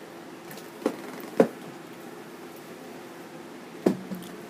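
Three short soft thumps over a steady low room hum: one about a second in, a louder one half a second later, and one near the end followed by a brief low hum.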